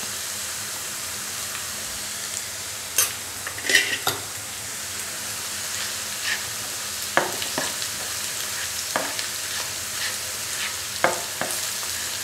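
Chopped onions sizzling steadily in hot oil in a non-stick frying pan, with the scattered scrapes and taps of a spatula stirring them.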